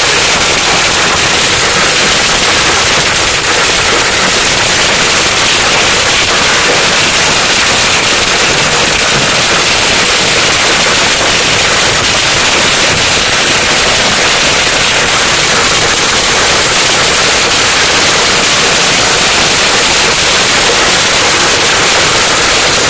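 Hail pelting a car in a dense, steady clatter of rapid impacts, unbroken and loud.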